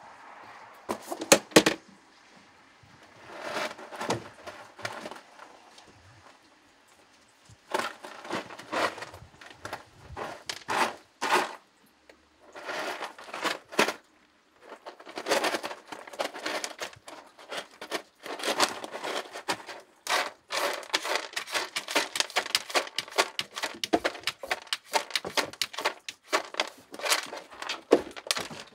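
A cat digging in a plastic litter box of white pellet litter to cover its poop: rasping scrapes of paws on pellets in bursts with short pauses, becoming a near-continuous run of scrapes in the second half.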